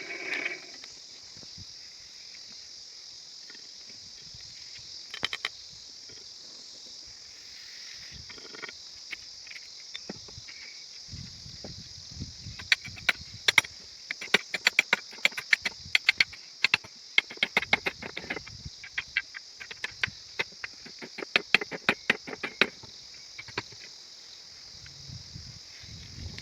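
Steady chirring of crickets, joined about halfway in by runs of quick, sharp blows of a blacksmith's hammer on iron, several a second.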